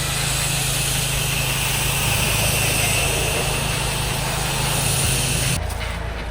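Pressure washer's engine running steadily under the hiss of the water spray, cutting off abruptly about five and a half seconds in.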